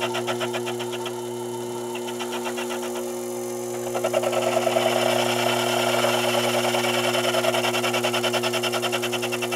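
Sherline benchtop lathe running with a steady motor hum while the cutter takes a light taper pass on the spinning workpiece. The cutting noise pulses about five times a second and gets louder from about four seconds in.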